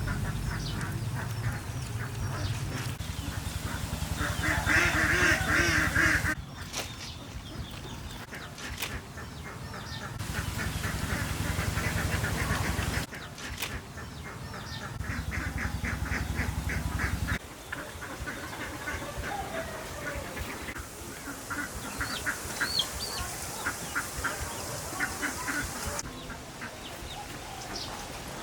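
Ducks quacking in quick runs of calls, with breaks where the sound changes abruptly from shot to shot.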